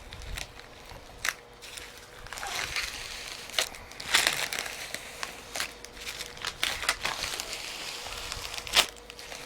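Old protective plastic film being peeled and crumpled off thin aluminum sheet blanks, crinkling and crackling with scattered sharp clicks and ticks from handling the sheet metal, the loudest click near the end. A faint steady hum of a swamp cooler runs underneath.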